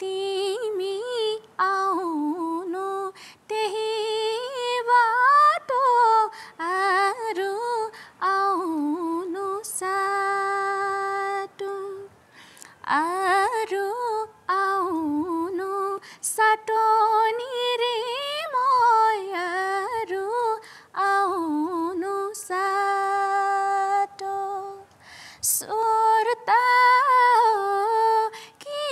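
A young woman singing a modern Nepali song unaccompanied, a single voice in long phrases with short breaks for breath and one long held note about a third of the way through.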